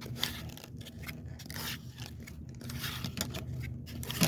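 Scraping and rustling handling noise as a jug fishing line is grabbed and hauled in, with a sharp knock near the end, over a steady low hum.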